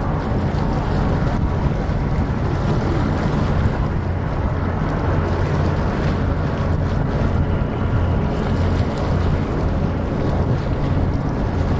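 Wind buffeting the microphone: a steady low rumble with a fluttering roughness.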